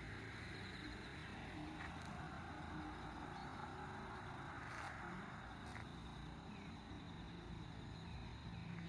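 Faint steady hum and rumble inside a light-rail tram car, with a low steady tone joining about halfway through.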